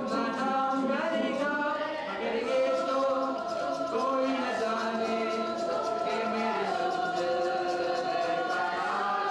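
A group of young voices singing a song together in chorus, with long held notes.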